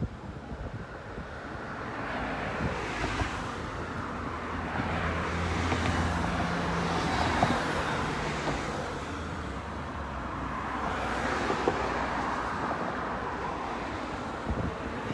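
Road traffic: several vehicles passing on the street one after another, each rush of tyre and engine noise swelling and fading, with a low engine hum under the loudest pass in the middle.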